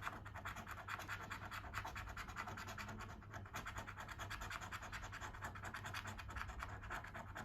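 Lottery scratch card being scratched off, a faint, quick run of scraping strokes over the card's coating.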